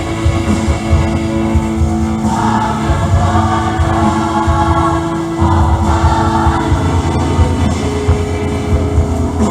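Church choir singing a Christmas cantata song with instrumental accompaniment, sung phrases rising and falling over a steady bass line.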